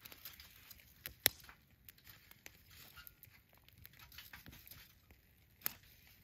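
Campfire crackling faintly with scattered small pops and a few sharp cracks, the loudest about a second in and another near the end.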